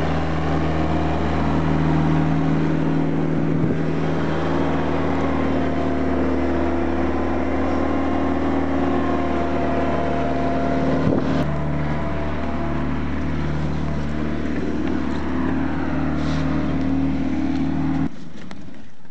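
Engine of a compact skid-steer loader running steadily, then shut off about 18 seconds in.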